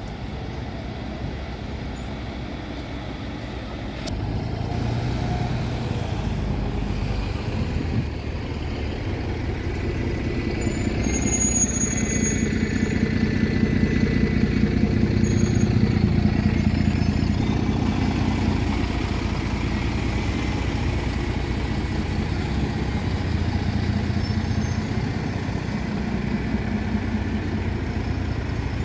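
Engine of a double-decker bus running close by as it pulls past and drives off. It grows louder from about four seconds in, is loudest around the middle, then eases a little as the bus moves away.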